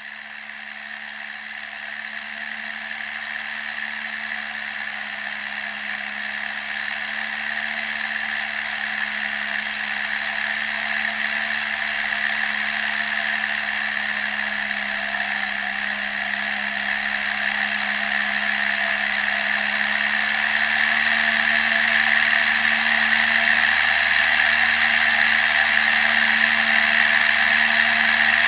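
Case CVX 1195 tractor's diesel engine running steadily under way on the road, with a constant hum and a strong high-pitched mechanical noise. It grows gradually louder, swelling again about twenty seconds in.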